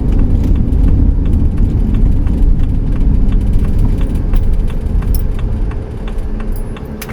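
Engine and road noise heard from inside the cabin of a 2008 Pleasure-Way Ascent camper van on the road: a steady low rumble with light rattles and ticks, easing a little about six seconds in.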